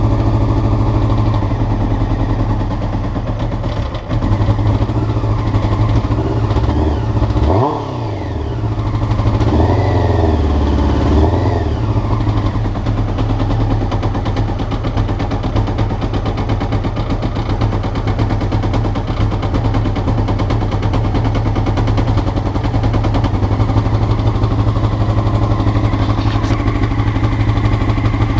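Honda CBR motorcycle engine idling roughly, the carbureted engine blipped up and back down twice in quick succession before settling back to a steady idle.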